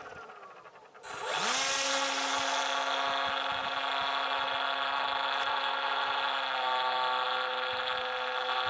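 Small RC plane's 200 W, 900 kV electric motor and propeller, close on the airframe: about a second in it spins up sharply, rising in pitch, then runs at a steady high whine, with a slight change in tone about six and a half seconds in.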